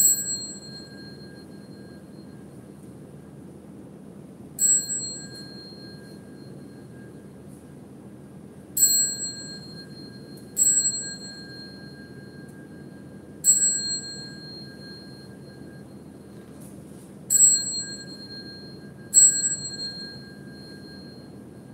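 A small Buddhist ritual bell struck seven times at uneven intervals, each strike a high, clear ring that fades within a second or two, keeping time with the bows before the altar. A faint steady hum lies underneath.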